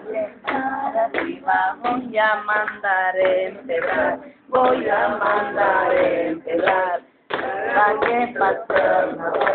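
Men and women singing together, with long held notes and two short breaks.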